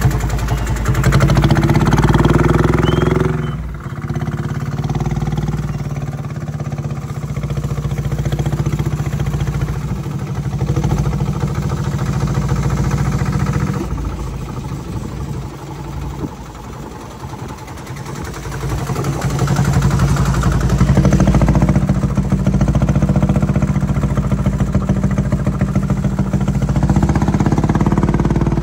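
Single-cylinder air-cooled diesel engine, taken from a generator, running a miniature Peterbilt truck as it drives off. Its note swells and eases with the throttle: loud for the first three seconds, quieter through the middle, and louder again over the last third.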